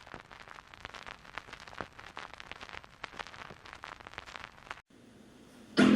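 Surface crackle of a vinyl LP, an irregular run of small pops and ticks as the stylus rides the groove before the track, which stops abruptly about five seconds in. Just before the end, old-school rap music comes in loud with a heavy bass.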